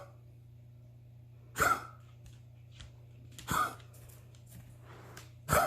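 Repeated short, sharp coughs, one about every two seconds, three in all.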